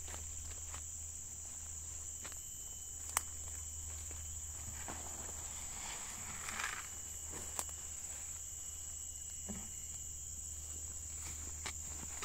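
A steady high-pitched insect drone over footsteps through dry grass and undergrowth, with scattered twig snaps. About six seconds in, a short rattling hiss as granular NPK fertilizer is poured from a bucket into a basin.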